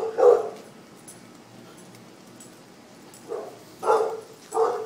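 A dog barking in short single barks: two at the start, then three more about half a second apart near the end.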